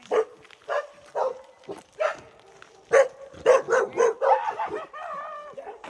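A dog barking repeatedly: about ten short barks, coming closer together in the second half.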